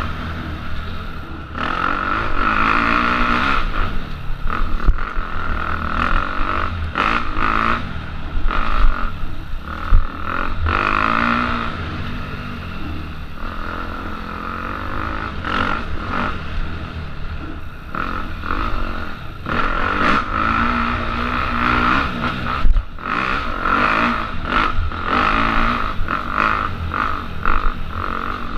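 Enduro motorcycle engine revving up and falling back again and again as the rider works the throttle along a rough dirt trail, with frequent knocks and clatter from the bike over bumps and roots.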